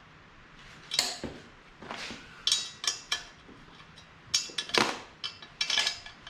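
Irregular sharp metallic clinks and knocks, some ringing briefly, as a steel exhaust pipe section is loosened and twisted into position on a mini bike frame.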